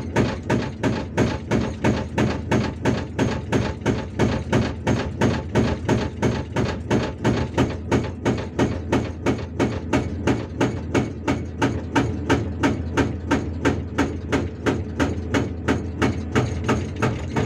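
Hydraulic rock breaker on a Hyundai R480LC-9S excavator hammering rock, a steady run of heavy blows at about three a second over the excavator's running engine. The blows stop at the very end.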